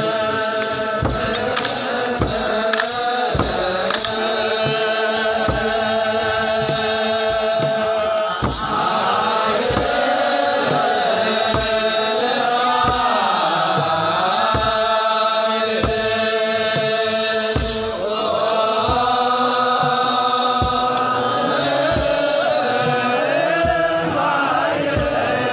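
Ethiopian Orthodox wereb: a group of clergy chanting together in slow, sustained phrases, over drum strokes at a steady beat.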